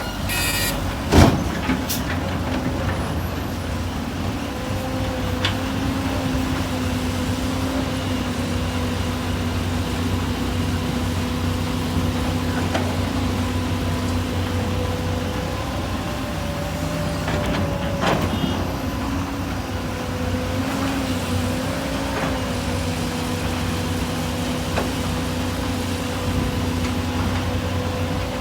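Large hydraulic excavator and diesel dump truck engines running steadily, with a hydraulic whine that wavers slightly in pitch. There is a sharp metallic bang about a second in and a smaller knock around eighteen seconds.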